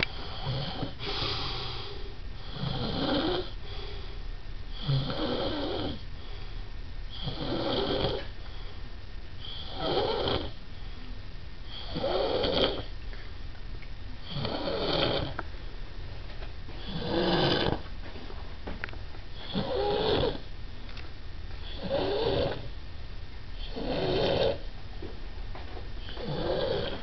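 A sleeping man snoring in a steady rhythm, about one snore every two to two and a half seconds.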